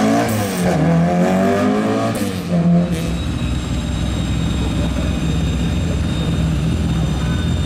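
Opel Kadett C Caravan race car's engine revving up and down as it drives through a cone slalom, then after about three seconds a steady low engine drone.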